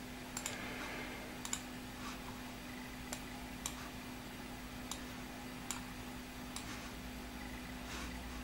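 Computer mouse clicking: single sharp clicks at uneven intervals, about one a second, over a faint steady hum.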